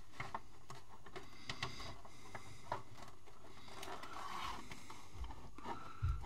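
Plastic keyboard case being handled and set in place: scattered light clicks and taps of plastic, a faint scraping about four seconds in, and a dull low knock near the end.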